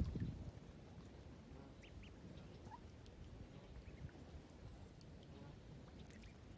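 Faint calls from mallard ducks, a few short high notes about two seconds in, over a low rumble that is loudest right at the start.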